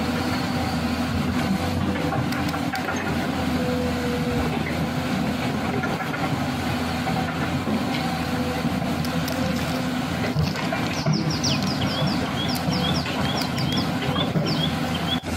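A vehicle engine running steadily with a low, even hum, like a heavy truck's engine, under toy construction-vehicle play.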